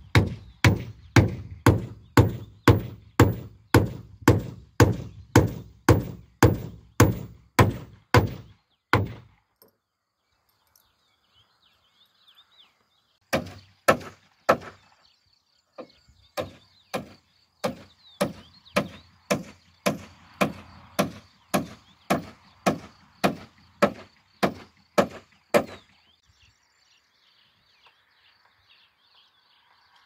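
A claw hammer drives nails through the bottom plate of a timber stud-wall frame into the wooden floor deck. It strikes evenly about twice a second for around nine seconds. After a pause come three blows, then another even run of about ten seconds.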